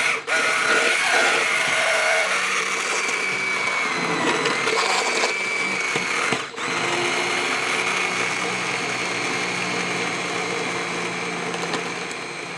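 Handheld immersion blender running in a pot of hot peach sauce, puréeing it smooth, with a steady motor whine. The motor cuts out for a moment about six and a half seconds in, then carries on.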